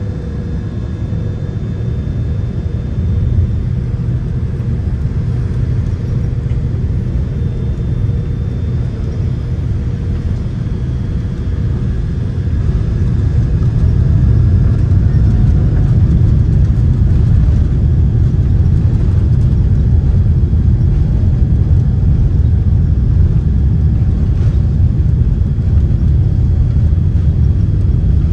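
Jet airliner heard from inside the cabin: a steady low engine rumble that grows louder about halfway through as thrust comes up for the takeoff roll.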